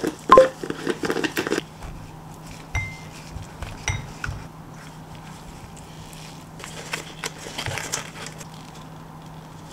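Food-prep handling sounds: a wooden spoon scooping and knocking against a glass mixing bowl on a kitchen scale, with a few sharp clicks. The busiest noise is in the first second and a half, and there is rustling around two thirds of the way through as a pouch is handled over the bowl.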